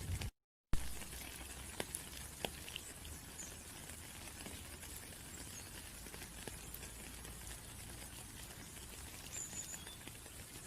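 Rain falling steadily, with a few separate drops ticking about two seconds in. Near the start the sound drops out completely for under half a second and comes back with a sharp click.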